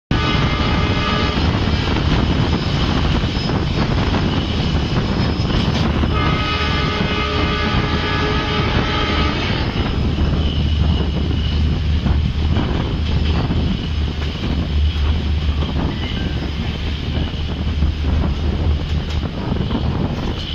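An EMD diesel locomotive's horn sounds a long blast for about the first ten seconds, then stops. The coach's wheels keep rumbling on the rails, with wind rushing past the open door.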